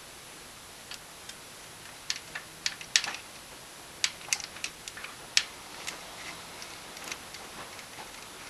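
Irregular, sharp metal clicks and taps of hand tools and parts during valve spring and rocker work on a small-block Chevy's valvetrain, thickest in the middle few seconds.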